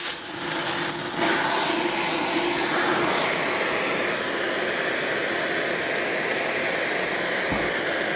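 Oxy-acetylene torch flame hissing steadily while it heats square steel tubing red-hot at the bend, getting louder about a second in.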